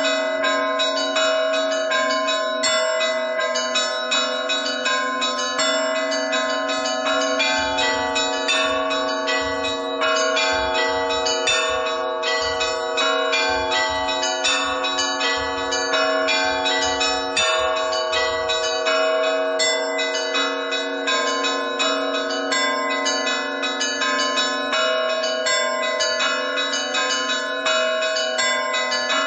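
Russian Orthodox church bells rung in a trezvon: small bells struck rapidly in a running pattern over the sustained ringing of larger bells.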